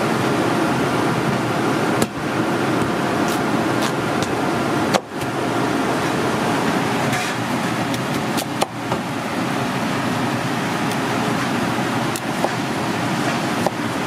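Steady commercial-kitchen background noise, with a low steady hum coming in about halfway. In the second half there are a few faint knocks of a cleaver cutting a kabocha squash on a wooden cutting board.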